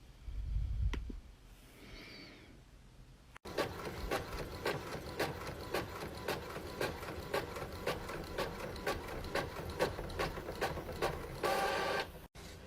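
Printer printing a page: a steady, rhythmic clicking and clatter of about four clicks a second, starting suddenly a few seconds in.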